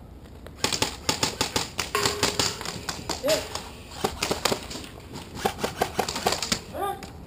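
Airsoft guns firing, rapid irregular strings of sharp pops and clacks that start about half a second in and carry on until just before the end, with a couple of brief voice sounds among them.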